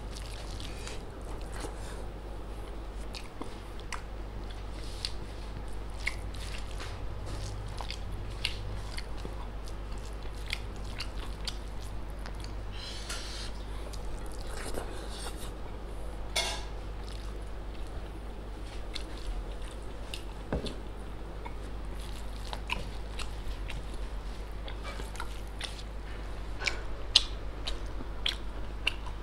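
Close-miked eating by hand: rice and dal being mixed with the fingers and chewed, with irregular wet mouth clicks and smacks over a steady low hum. A sharper knock near the end.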